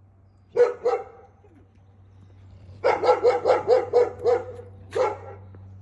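A dog barking at a passing dog: two barks, a pause, then a quick run of about seven barks and one more near the end.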